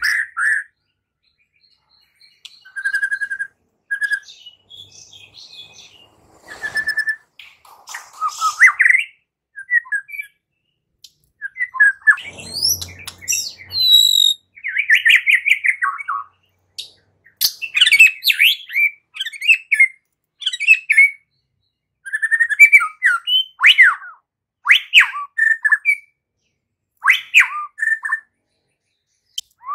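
White-rumped shama singing: a loud, varied run of short whistled phrases, quick chirps and sweeping notes, with brief pauses between phrases.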